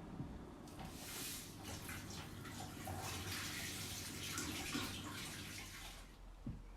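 Water running with a steady rushing splash that starts about a second in and dies away near the end.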